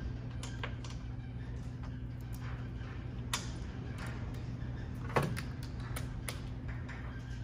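Light clicks and knocks of metal tools and parts being handled, with a sharper knock about five seconds in, over a steady low hum.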